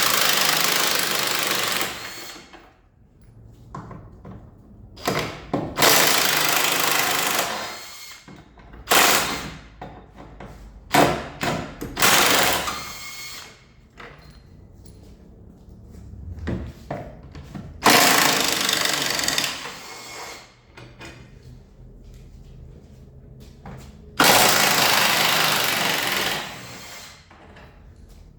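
Impact wrench run in about six separate bursts of one to three seconds each, undoing the bolts of a front anti-roll bar mount.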